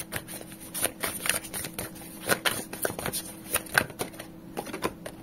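Tarot cards being handled: a deck held in the hand and cards slid off and laid on the spread, giving irregular soft clicks and flicks of card stock that thin out near the end.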